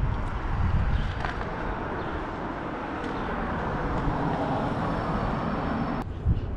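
Steady outdoor road traffic noise from passing vehicles, with a low rumble.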